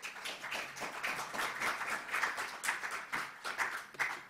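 Audience applauding, many hands clapping together; the applause stops abruptly near the end.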